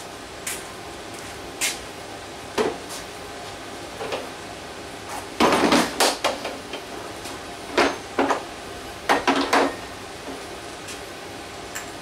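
A hard plastic tool case being handled on a wooden workbench. It is set down with a loud clatter about halfway through, then gives a few sharp clicks as its latches are snapped open and the lid is opened, with scattered lighter knocks around them.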